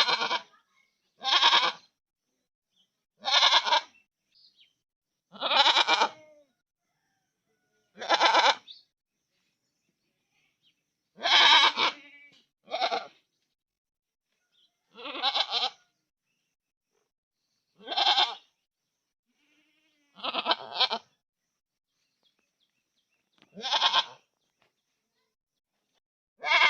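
Goat bleating: about a dozen separate bleats, each under a second long, spaced two to three seconds apart with silence between.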